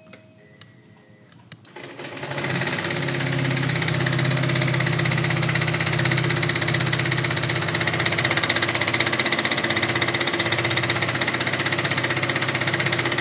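Honda PCX scooter engine started about two seconds in, then idling with a fast, even mechanical clatter: the abnormal noise being diagnosed.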